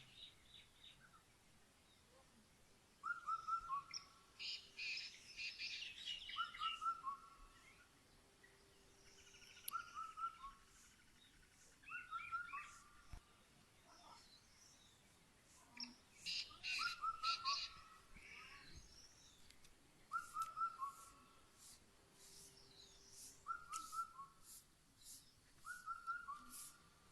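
Wild birds calling: one bird repeats a short whistled phrase of falling notes every two to four seconds, while other birds break in with bursts of higher, quicker chattering calls.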